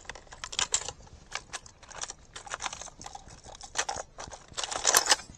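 Clicks, rattles and rustling of fishing lures and tackle being handled and sorted in a tackle bag, with a louder burst of rattling near the end.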